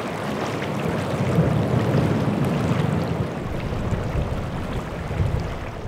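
River water rushing steadily, a continuous even noise.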